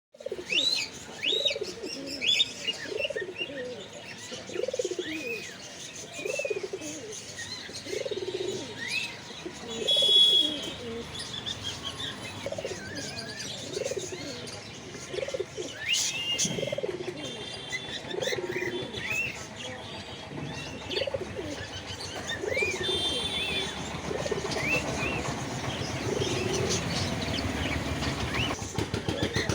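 Domestic pigeons cooing over and over, several calls overlapping, with higher short chirps mixed in among the coos.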